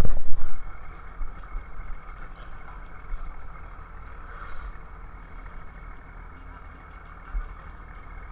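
Steady drone of a fishing vessel's engine and deck machinery. A loud knock and clatter in the first half second, then smaller knocks now and then.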